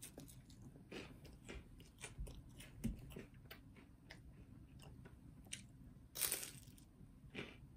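A person biting into and chewing a crisp cracker, with a quiet run of short crunches throughout. The loudest bite comes about six seconds in, followed by another crunch just over a second later.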